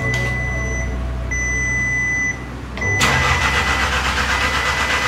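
Swapped-in VW Golf GTI Mk7 four-cylinder engine running with a low steady hum while a dashboard warning chime beeps on and off in a high tone. About three seconds in, a louder rushing noise joins.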